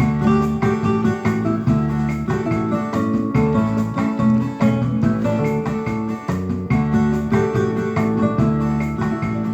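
Background music led by a plucked guitar, with steady rhythmic notes.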